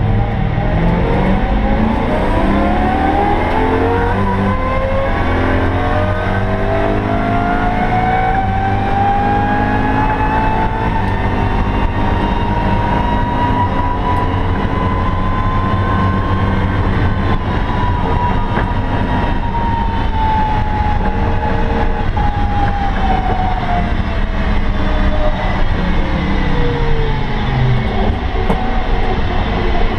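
BMW E92 M3's V8 engine heard from inside the stripped, roll-caged cabin, pulling hard at high revs, its pitch climbing steadily for about fifteen seconds. The revs then fall away gradually for about ten seconds as the car eases off, and climb again near the end, over constant road and tyre rumble.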